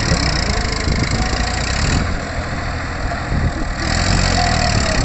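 Tractor diesel engine running steadily at a low, even speed.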